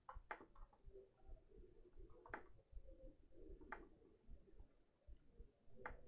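Near silence with a few faint, sharp clicks spaced a second or more apart, from the rotary control knob of a Dometic RUA6408X caravan fridge being turned and pressed.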